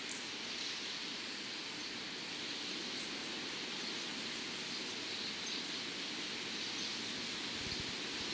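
Steady outdoor background hiss, an even wash of noise with faint scattered ticks and a few low thumps near the end.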